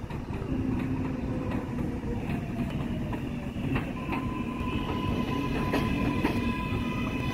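R188 subway train pulling into an elevated station: a steady rumble with wheels clicking over the rail joints, and a steady high whine joining about four seconds in.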